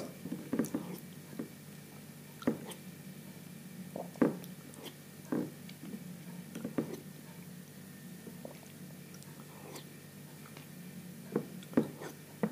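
Eating semolina porridge with a metal spoon from a ceramic bowl: short scattered sounds of the spoon knocking and scraping the bowl and of mouth and chewing noises, about every second or two, with a quieter gap from about seven to eleven seconds in.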